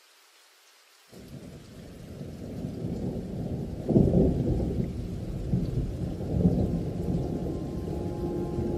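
Recorded thunderstorm: faint rain, then about a second in a low rolling rumble of thunder rises, loudest about four seconds in and rumbling on with the rain. Near the end, steady musical tones come in over it.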